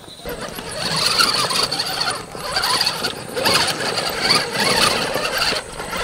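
Scale RC crawler truck's electric motor and geared drivetrain whining as it climbs over rocks. The whine surges and eases with the throttle, dropping out briefly a few times.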